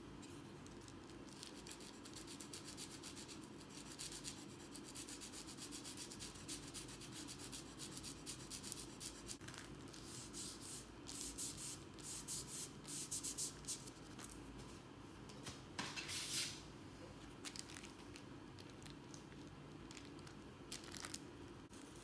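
Fingers rubbing soft pastel into paper: faint, repeated dry scratchy strokes, with a run of louder scraping strokes a little past the middle.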